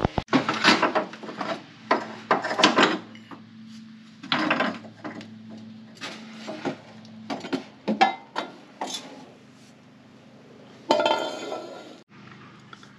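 Irregular metallic clinks, knocks and clatter of hand tools, bolts and suspension hardware being handled while a subframe bracket is taken off under a car, with a brief hiss near the end.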